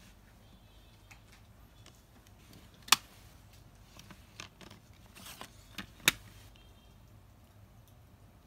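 Plastic CD jewel cases being handled: two sharp clicks about three seconds apart as the cases snap, with softer taps and a brief rustle between them.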